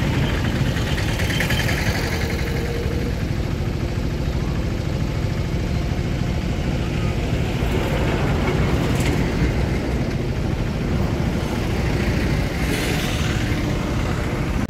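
Steady rumble of a motor vehicle's engine and road noise, unbroken throughout.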